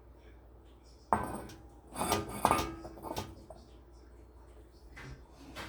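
Stainless steel utensil clinking and scraping against a container while scooping lamb bone broth: a few sharp knocks with short ringing, clustered in the first half, and one more near the end.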